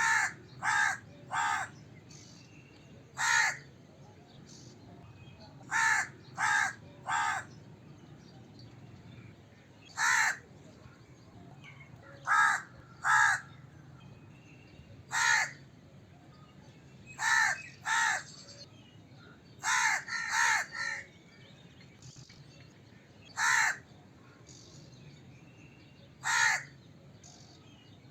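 Crow cawing: short, harsh caws in groups of one to three, with pauses of a second or more between groups, over a faint steady background hiss.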